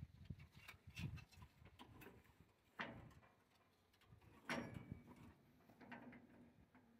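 Faint scattered metallic clicks and knocks as a hand works the wire-tie knotter mechanism of a New Holland 570 square baler, the loudest knocks a little under 3 s and about 4.5 s in.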